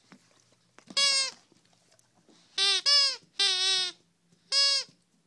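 Rubber squeaky dog toy squeezed, giving five short, loud squeaks that alternate between a lower and a higher note as it is squeezed and released.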